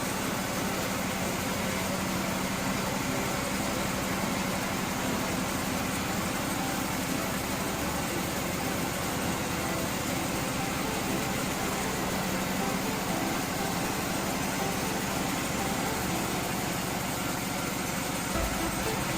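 Log sawmill cutting a very large log into slabs, its engine and saw running steadily with a constant low hum.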